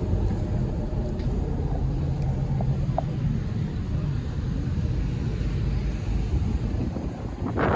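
Low, steady rumble of a Supercat-class catamaran ferry's engines under way, heard on board. Near the end, wind starts buffeting the microphone in loud gusts.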